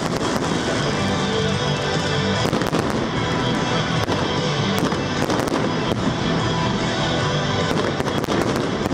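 Aerial fireworks going off in scattered sharp bangs, some in quick clusters about two and a half seconds in, around five seconds in and near the end, over loud music played for the display.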